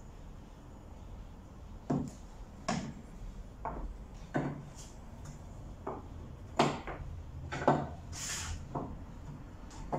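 Irregular light knocks of small pine blocks and a plastic glue bottle being set down and shifted on the plywood and pine strips of a hollow-core door frame, about eight taps in all.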